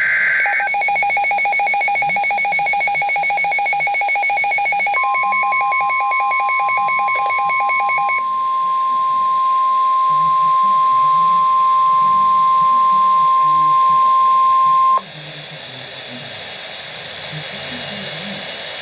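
A NOAA Weather Radio alert. A brief warbling digital data burst (the SAME header) ends right at the start. A rapid electronic alarm beeping runs for about eight seconds. About five seconds in, the steady 1050 Hz Weather Radio warning tone comes in, holds for about ten seconds and cuts off suddenly, leaving radio hiss.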